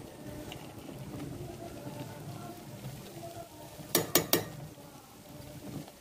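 Cooked biryani rice being stirred in a metal pot with a metal ladle, then three quick, sharp metal clinks about four seconds in as the ladle strikes the pot.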